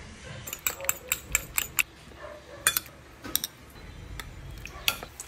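Metal fork clicking against a ceramic bowl while beating an egg: a quick run of about seven taps, then a few scattered clinks.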